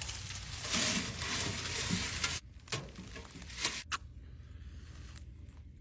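Dry pine needles and small twigs rustling and crackling as they are handled and packed into a tent stove's firebox, then a few sharp clicks or snaps between about two and a half and four seconds in.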